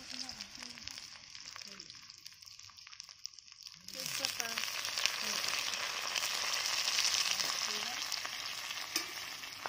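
Hot oil sizzling and frying in an aluminium wok, with potato pieces and green chillies in it. The sizzle flares up sharply about four seconds in, as bay leaves go into the oil, and then stays loud.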